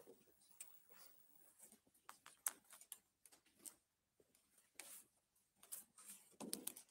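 Near silence: room tone with faint scattered clicks and rustles.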